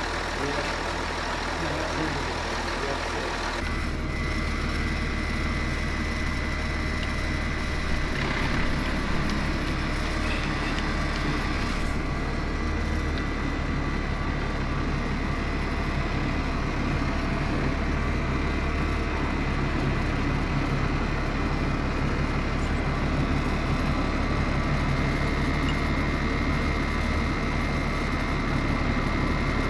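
A farm tractor engine running steadily, with a thin steady high whine that comes in a few seconds in.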